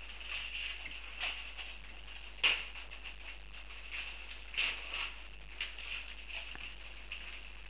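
Litter of month-old Dogue de Bordeaux puppies eating together from one pile of food: irregular wet smacking, lapping and chewing noises, with the sharpest click about two and a half seconds in.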